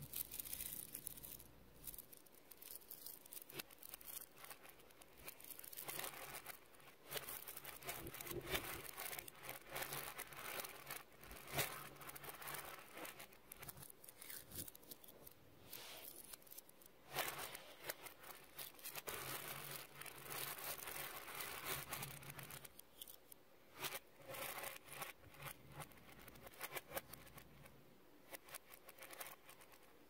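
Small neodymium magnet balls clicking and rattling against one another as clumps of them are pulled apart and pressed onto a large sculpture of magnet balls. They come in spells of rapid fine clicks with short lulls between.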